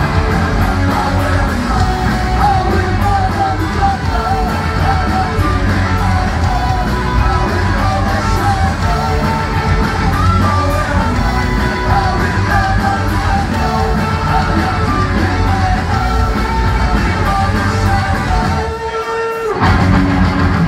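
A punk rock band plays live: electric guitars, bass and drums under sung and shouted vocals in a large room. Near the end the band stops on a held note.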